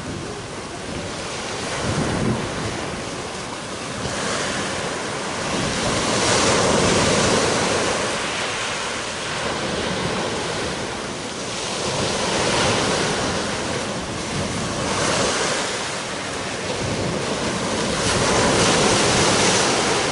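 Sea waves breaking and washing up a pebbly beach, the surf swelling and falling every few seconds, with wind buffeting the microphone.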